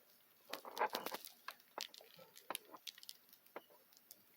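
Plastic Tangle fidget toy being twisted in the hands, its curved segments clicking irregularly, with a busy run of clicks about a second in.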